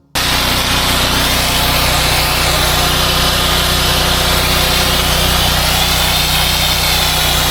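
Petrol-engined pressure washer running steadily: an engine hum under a loud hiss from the water jet that wavers in pitch.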